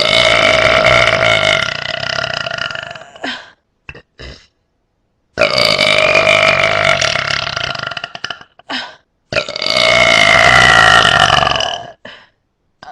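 A person burping: three long, drawn-out, loud burps of about three seconds each, the second starting just past five seconds in and the third just past nine, with a few short faint sounds in the gaps between them.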